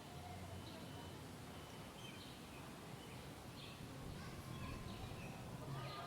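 Faint city ambience: a low, steady rumble with short, high chirps scattered through it, and distant voices coming in near the end.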